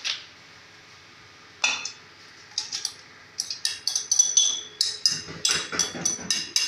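A spoon scraping and clinking against a plate held over an aluminium pressure cooker: one sharp clink a little under two seconds in, then from about halfway a rapid run of sharp, ringing clinks and scrapes.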